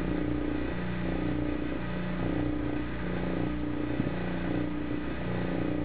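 Vacuum pump motor running with a steady mechanical hum that swells slightly and fades about once a second, holding the vacuum on outgassing epoxy. A small click about four seconds in.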